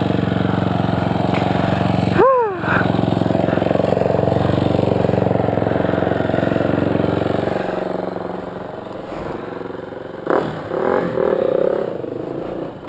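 Honda CMX250 Rebel motorcycle's air-cooled parallel-twin engine running under way, heard with wind on a helmet camera; about seven or eight seconds in, the engine sound drops away and the level falls.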